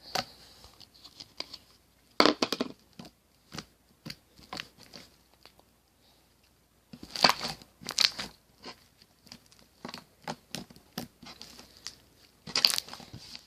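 Sticky fluffy slime being stretched, squeezed and pulled apart in the hands, giving bursts of crackling, popping and tearing sounds with faint sticky clicks between.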